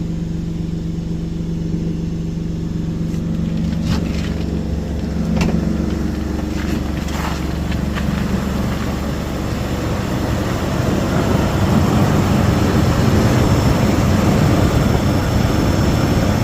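2002 Nissan Pathfinder's 3.5-litre V6 running with exhaust leaks on a newly fitted alternator, steady with a few sharp ticks. About ten seconds in it grows louder and rougher.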